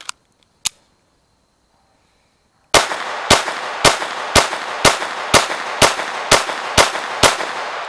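Glock pistol with an Advantage Arms .22 LR conversion kit firing ten rounds of CCI AR Tactical in steady succession, about two shots a second, each shot echoing. The whole magazine cycles without a malfunction. Two sharp clicks come near the start, well before the first shot.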